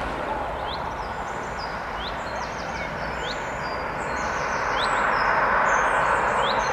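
Birds chirping, with short repeated chirps about once a second and higher twittering, over a steady rushing noise. The rushing grows louder in the last third as a Boeing 737 approaches on landing.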